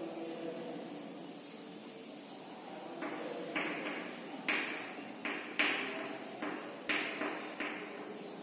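Chalk on a blackboard: starting about three seconds in, a string of about seven quick chalk strokes, each a sharp tap followed by a short scratch.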